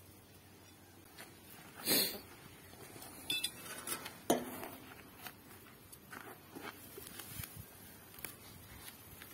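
Steel tiller tines and fittings of a Huter cultivator clinking and knocking as they are handled and taken off the rotor shaft. There are scattered light clicks, and a sharper metal clank with a brief ring a little over four seconds in.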